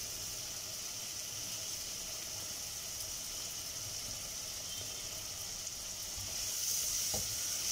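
Garlic pickle, garlic cloves and chillies in sesame oil with tamarind pulp, sizzling and bubbling in a frying pan on the stove: a steady soft hiss that grows louder near the end.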